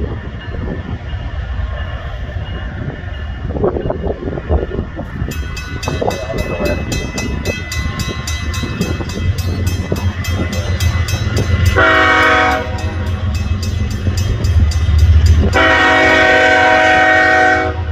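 Approaching diesel freight locomotives rumbling, the lead unit sounding its multi-chime air horn twice: a short blast about twelve seconds in, then a longer one of about two seconds near the end. A fast, regular high-pitched ringing starts about five seconds in and keeps on under the horn.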